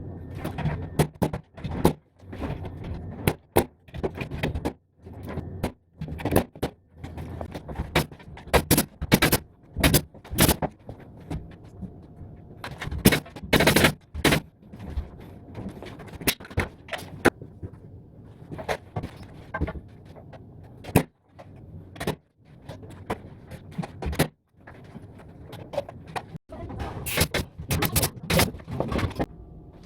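Pneumatic nail gun firing repeatedly into wood framing: sharp shots at irregular intervals, sometimes several in quick succession, with scraping and handling of timber between them.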